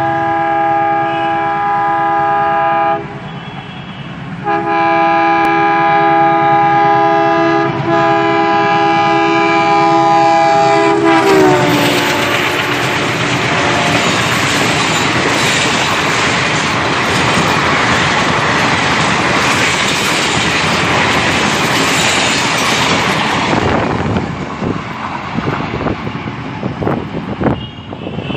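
Indian Railways train horn sounding two long, multi-note blasts, the second dipping slightly in pitch as the locomotive passes. The loud rush and rattle of the passenger coaches running close by follows for about twelve seconds, then fades with a few wheel clacks.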